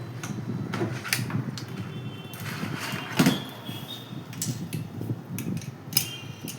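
Hands handling PC parts and packaging: irregular clicks and knocks over a low rustle, with a sharper knock about halfway through and another near the end.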